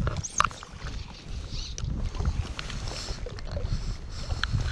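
Small waves lapping against an inflatable float tube, with wind rumbling on the camera microphone and a few sharp ticks, the loudest about half a second in.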